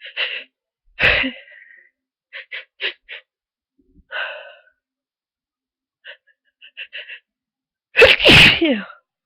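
A person with a heavy cold sneezing: a sharp sneeze about a second in, short quick breaths of a build-up, then a louder sneeze near the end whose voice falls in pitch.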